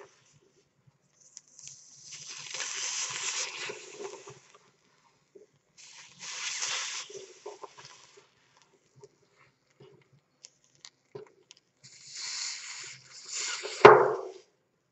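Heated knife blade sizzling and crackling as it slices through a mandarin's juicy flesh, in three hissing bursts of a second or more each, with small clicks between them. Near the end the blade comes down with a sharp knock on the wooden board, the loudest sound.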